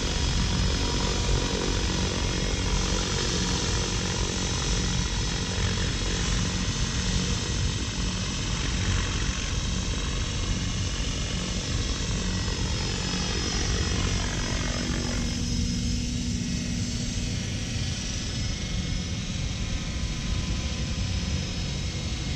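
Radio-controlled model helicopter flying aerobatic practice manoeuvres: the steady whine of its motor and spinning rotor blades, shifting in pitch as it moves about the sky.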